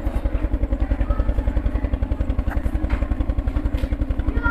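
A small engine running steadily, giving a fast, even low throb that does not change.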